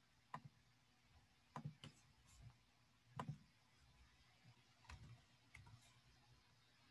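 Faint, scattered clicks of a computer mouse and keyboard, about seven in all, some in quick pairs, over near silence.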